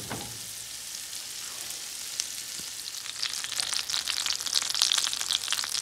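A stick of butter melting and sizzling in a frying pan over a low gas flame. The sizzle is a soft steady hiss at first, then about halfway through it turns into louder, busier crackling and popping as the butter foams.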